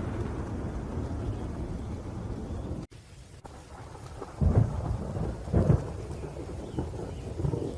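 Thunderstorm: steady rain with rolling thunder. The sound drops out abruptly about three seconds in, then two loud thunder claps come about a second apart.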